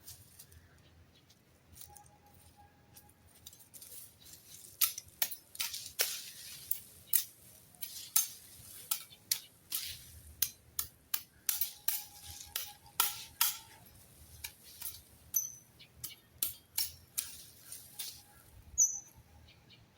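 A run of sharp, irregular clicks and snaps, a few a second, starting about five seconds in.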